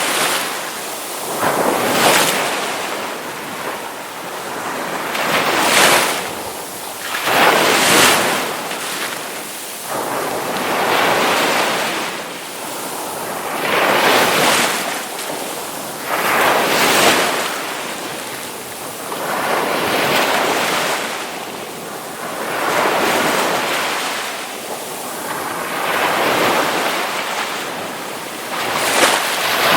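Ocean waves crashing, the surf swelling and falling back in surges every few seconds.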